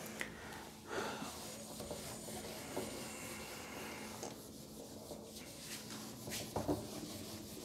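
Whiteboard eraser rubbing across a whiteboard in repeated wiping strokes, with a couple of light knocks, one about a second in and one near the end.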